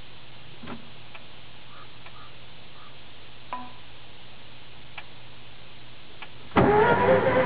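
A few faint clicks over a low hum, then about six and a half seconds in the VW bus engine suddenly starts cranking over on the starter with a loud, steady whirring: an attempt to start an engine that is hard to start.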